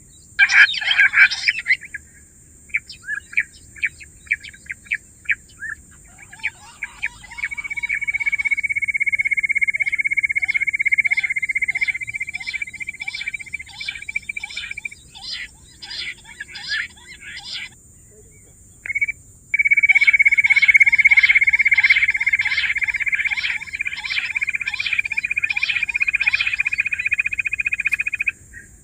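Bush quail calling: a quick run of short chirping notes, then two long ringing trills with rapid repeated whistled notes over them, broken by a pause of a few seconds.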